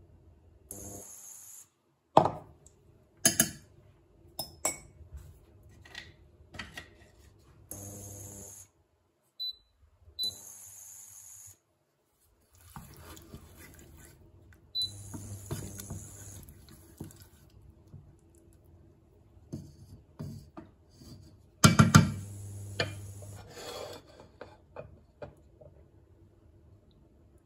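A metal spoon scraping and clinking against a glass jar and a stainless-steel saucepan as thick tomato sauce is spooned out. Then a wooden spoon stirs and scrapes the sauce in the pan. The loudest sound is a sharp knock on the pan about two-thirds of the way through.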